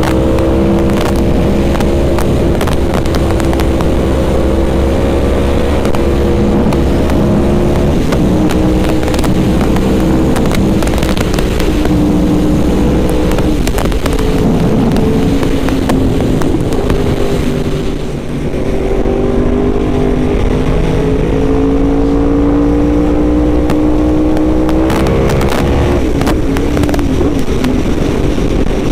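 Yamaha YZF-R1M's crossplane inline-four engine running at a steady cruise, over a haze of wind noise. The engine note sags slightly, dips briefly about two-thirds of the way through, then climbs as the bike accelerates and drops again near the end.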